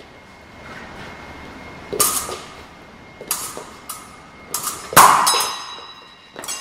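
Steel fencing blades clashing: a run of about eight sharp metallic clinks, irregularly spaced, the loudest about five seconds in, with the blades ringing afterwards.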